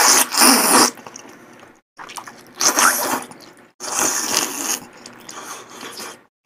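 Slurping malatang noodles from a small bowl held at the lips, close to the microphone, in three long noisy pulls with short breaks between.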